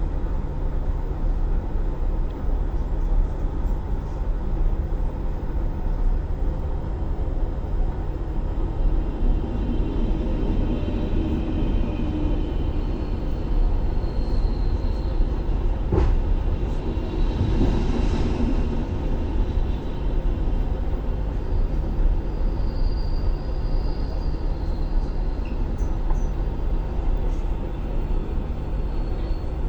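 Passenger train at the station: a steady low rumble with a constant low hum. Near the middle there is a sharp click, then a brief hiss.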